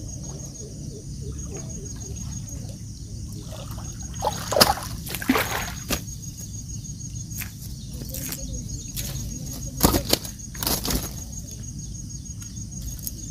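A hooked rohu carp thrashing in the water: a handful of sudden splashes and flaps, bunched about four to six seconds in and again around ten seconds in, over a steady high insect drone.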